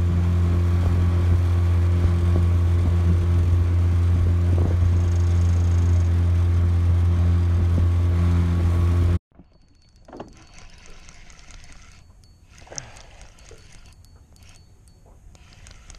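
Small boat outboard motor running at a steady speed with an even hum that does not change pitch. It cuts off abruptly about nine seconds in, leaving only faint clicks and knocks.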